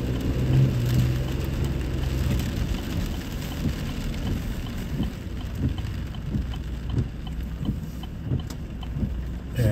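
Rain falling, with many separate drop ticks over an even hiss, on top of a steady low hum that is strongest in the first couple of seconds.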